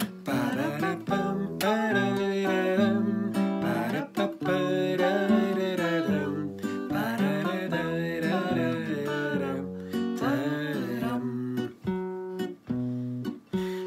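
A woman and a man singing a song to a strummed acoustic guitar. About ten seconds in, the voices stop and the guitar strums on alone.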